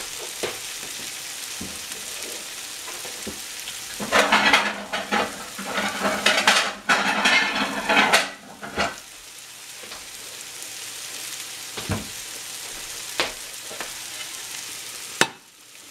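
Pancakes frying in hot oil in a nonstick skillet, with a steady sizzle. From about four to nine seconds in, the sizzle gets much louder and crackly over a low hum, then settles back, and a couple of sharp clicks come near the end.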